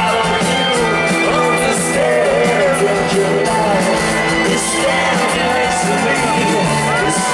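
Live rock band playing a song in concert, with singing over the instruments.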